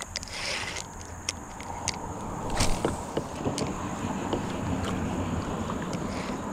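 Irregular knocks and clicks of fishing gear being handled in a kayak, the loudest about two and a half seconds in, over steady wind and water noise.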